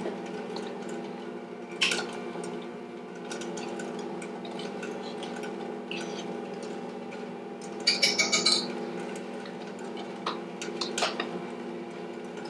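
A metal measuring spoon clicks and clinks against a small container while baking soda is measured out, with a quick run of taps about eight seconds in. A steady low hum runs underneath.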